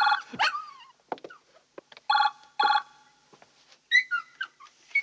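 Telephone ringing: one short ring at the start, then two short rings about two seconds in, with a few faint ticks between them. Near the end come some high whimpers from a small dog.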